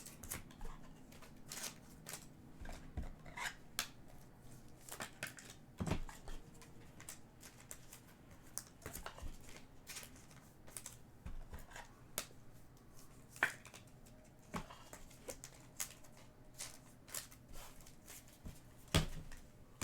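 Trading cards being handled and sorted by hand on a table: faint, irregular light clicks, taps and slides, with a few sharper knocks, over a faint steady low hum.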